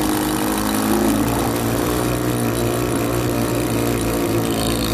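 Power drills running as roofers drive fasteners through plates into the cover board, a steady motor whine with a slight shift in pitch about a second in.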